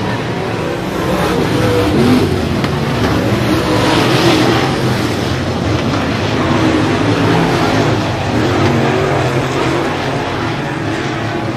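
Dirt track race car engines running and revving as the cars circle a clay oval. The engine note rises and falls with the throttle over a steady, loud noise.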